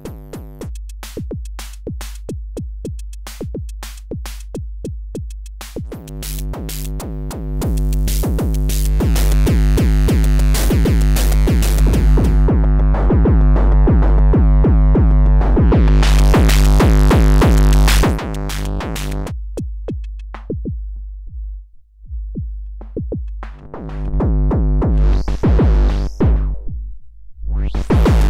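An Akai Tom Cat analog drum machine pattern is run through a Schlappi Engineering Angle Grinder eurorack filter and distortion module. Fast, distorted drum hits sound over a steady low drone with ringing pitched overtones. About midway the low-pass filter closes and muffles the highs, then opens bright again, and near the end the filter makes a rising sweep.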